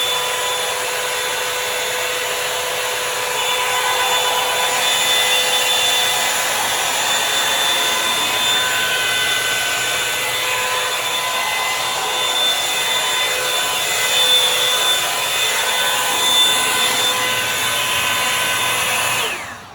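Revlon One Step Volumizer hot-air brush dryer running: a steady rush of air with a motor whine, its level wavering somewhat. It stops suddenly near the end.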